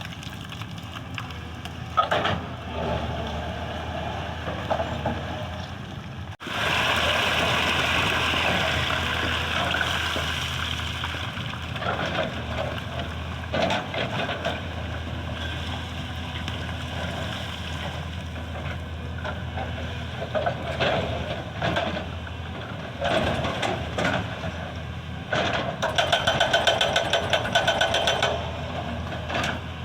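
Excavator diesel engine running steadily, with intermittent scraping and clanking of the bucket working on stone and road material. Near the end comes a fast, regular hammering.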